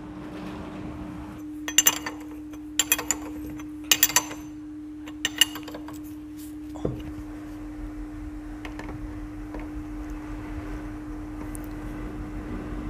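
Metal engine parts and tools clinking and knocking together on the workbench: a handful of sharp clinks in the first half, over a steady hum.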